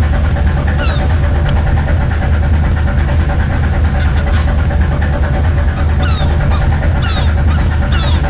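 A fishing boat's engine running steadily with a deep, even hum. Gulls call over it several times in short cries that fall in pitch, more often in the second half.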